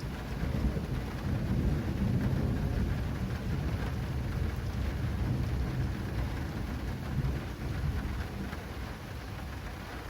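A long roll of thunder rumbling over steady heavy rain, with raindrops pattering on an acrylic awning. The thunder swells soon after the start and dies away near the end, leaving the rain.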